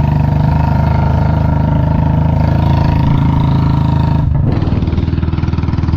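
A vehicle engine running steadily at low speed on a rough downhill road. Its note changes abruptly a little after four seconds in.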